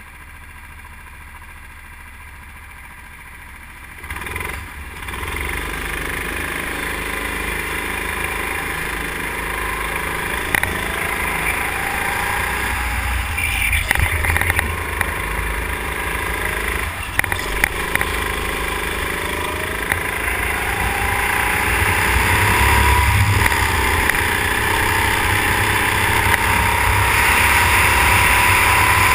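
Go-kart engine heard from on board. It runs low for the first few seconds, then gets much louder about four seconds in as the kart pulls away. It keeps running at speed with its pitch climbing, over a low wind rumble on the microphone, with a few sharp knocks along the way.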